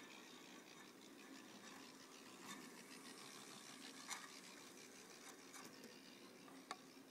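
Faint whir of a model single-truck Brill trolley's small electric motor running along its track, with a few light clicks, the sharpest one near the end.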